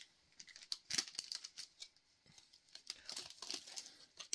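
Faint crinkling and short clicks of a foil Lorcana booster pack wrapper being handled and worked open, in scattered bursts about a second in and again around three seconds.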